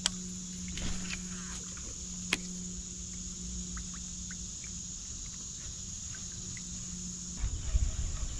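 Insects buzzing steadily, high-pitched and unbroken, with a few sharp clicks in the first couple of seconds. Low rumbling and knocks come in near the end.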